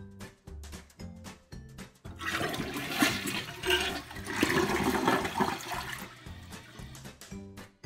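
A newly installed American Standard toilet flushing. The rush of water starts about two seconds in and lasts about four seconds, over background music with a steady beat.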